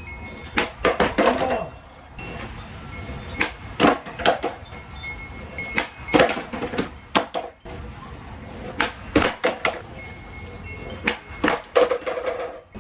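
Skateboard being popped and landing: repeated sharp clacks and slaps of the board on pavement during tray flip attempts, over a steady low rumble of wind.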